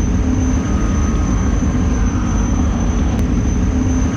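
Racing catamaran powerboat running at speed: a loud, steady engine rumble with a faint high whine over it.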